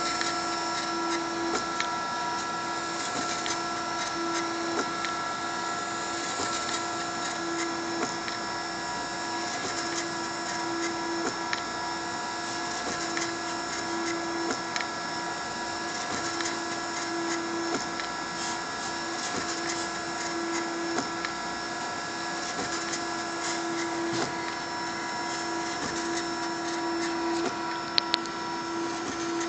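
Ultimaker Original 3D printer running a print: its stepper motors whine in several steady tones over a hiss, with frequent short clicks and two sharp clicks near the end.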